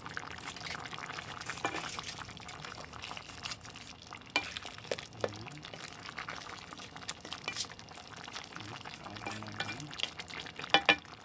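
Coconut-milk stew of tilapia, squash and okra simmering in a pot, bubbling with many small scattered pops and ticks. A few sharper clicks come near the end.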